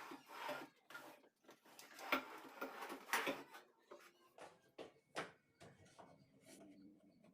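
Irregular knocks and clicks of parts being handled and set down at the workbench, a few louder knocks about two, three and five seconds in.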